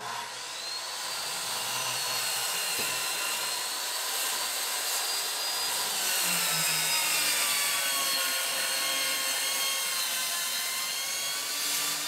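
Corded circular saw ripping a long strip off a sheet of 3/4-inch plywood. The motor runs steadily under load, with a high whine that dips a little partway through the cut and comes back up.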